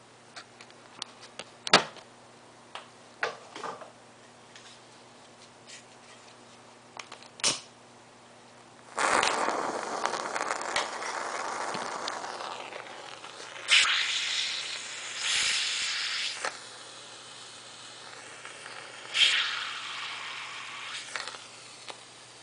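Stormproof match struck against its striker, catching about nine seconds in and burning with a loud hiss for several seconds. It hisses again in two more bursts as the burning head is dipped into a glass of water and keeps burning. A few sharp clicks and taps come before it catches.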